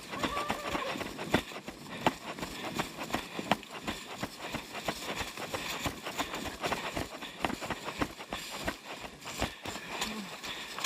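Running footsteps on a trail: a quick, uneven series of thuds and scuffs.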